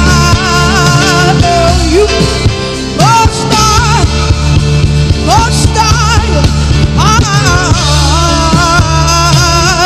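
Live gospel worship music: a band with steady bass and sustained chords under a voice that slides up into long, wavering held notes, phrase after phrase.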